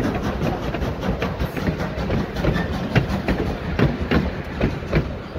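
Loaded freight train wagons rolling past, with a steady low rumble and wheels clacking over the rail joints several times a second.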